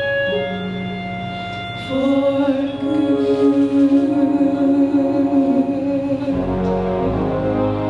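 Two singers in a musical-theatre duet hold a long final note in harmony over keyboard accompaniment. The sustained voices come in about two seconds in after a few bars of keyboard alone.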